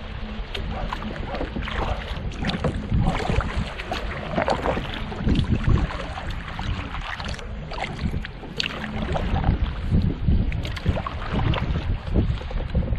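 Double-bladed kayak paddle dipping and splashing water beside a solo canoe, in an uneven run of strokes, with wind noise on the microphone.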